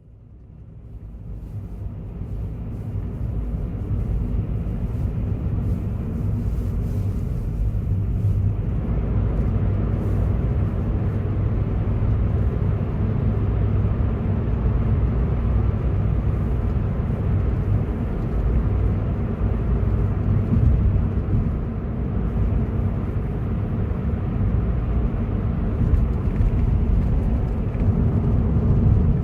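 Steady low rumble of a vehicle on the move, heard from inside: engine drone and road noise that fade in over the first few seconds and then hold steady.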